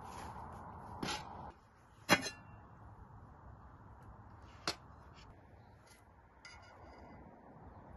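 A heavy black metal cooking pot clanks down onto a wooden table about two seconds in, one sharp ringing knock, with a lighter knock just before it. A few quieter clinks of a serving spoon against the pot follow.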